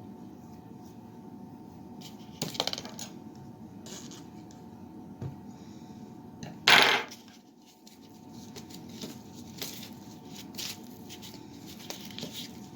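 Clinks and scrapes of a utensil in a mixing bowl as a stiff peanut-butter and oat suet mix is stirred, with a sharper knock about two and a half seconds in and one loud, short clatter near the middle.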